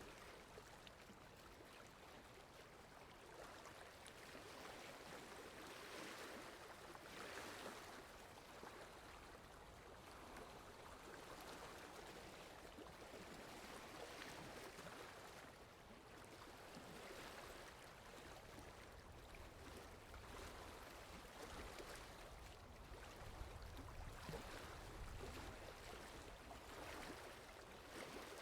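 Faint lake water lapping, gently swelling and fading every several seconds. A low rumble comes in for a few seconds about two-thirds of the way through.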